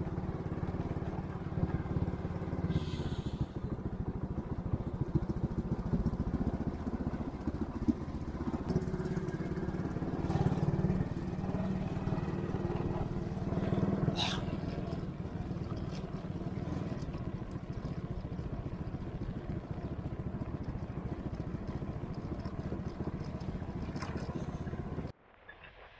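Motorbike engine running steadily during a ride, with a rapid even pulse low down. It cuts off abruptly about a second before the end, leaving a much quieter background.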